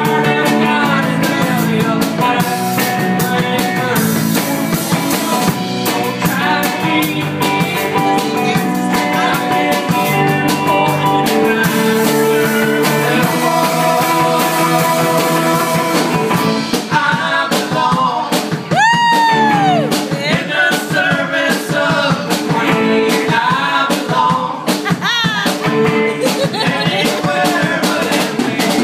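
Live rock band playing: electric guitar, keyboard, bass guitar and drum kit, with one note that swoops up and back down about two-thirds of the way through.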